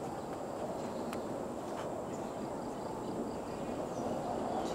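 Steady outdoor background noise: an even low rushing hiss with a faint, steady high tone above it and a few light ticks.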